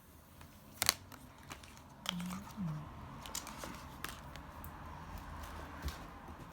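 Handling of a new smartphone and its packaging: scattered sharp clicks and taps, the loudest just under a second in, with light rustling and crinkling.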